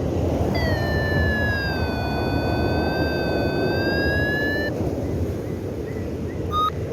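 Strong wind buffeting the microphone of a paraglider in flight. About half a second in, a high electronic tone begins, dips in pitch and rises again, and stops after about four seconds, typical of a paragliding variometer's sink tone.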